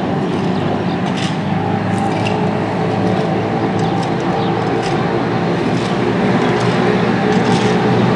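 Steady engine drone, a low hum with several held tones, with short high clicks scattered over it.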